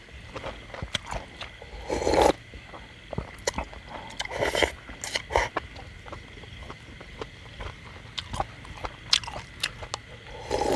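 Close-up eating sounds: chewing and lip-smacking on hotpot beef with many small wet clicks, broken by a few louder slurps. Near the end come gulps of drinking from a steel bowl.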